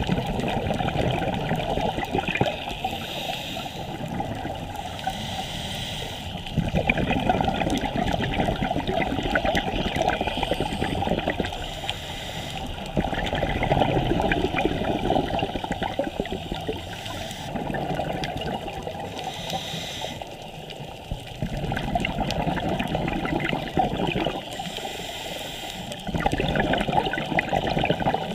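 Scuba diver's exhaled bubbles gurgling and rushing past an underwater camera housing, rising in surges every five or six seconds with each breath out through the regulator.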